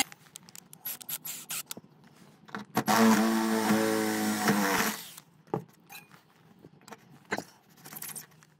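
Parkside cordless drill with a stepped drill bit cutting through thin steel sheet, enlarging a hole to about 26 millimetres. The motor runs with a steady whine and metal-scraping hiss for about two seconds near the middle, with scattered clicks and knocks before and after.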